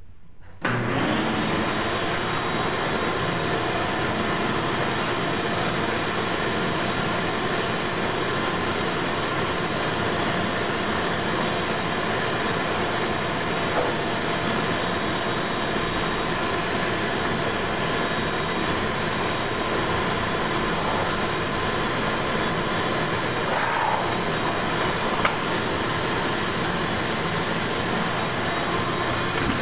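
Ridgid shop vacuum switched on about a second in, then running steadily as its hose sucks dust and debris off a disassembled chainsaw.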